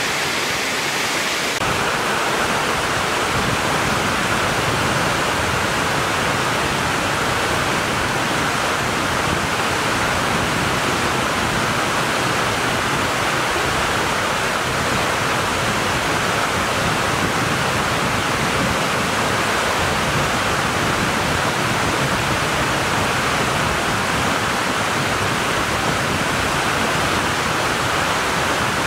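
Steady rush of a rocky mountain stream, white water tumbling over boulders and small cascades. The rush grows fuller about two seconds in, then holds even.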